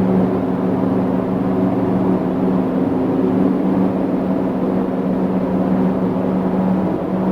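Steady distant drone at a fixed low pitch with a few overtones over a background hiss, which the recordist thinks may come from high-voltage power lines.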